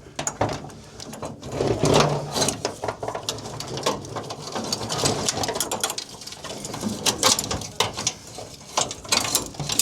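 An old 1968 Camaro wiring harness being handled and sorted: irregular rustling, clicks and rattles of wires and connectors knocking together.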